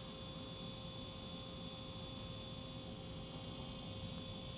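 Quadcopter brushless motor spinning steadily at low throttle, a quiet, even hum with a faint high whine. It runs smoothly, with no buzzing or ticking: a healthy motor.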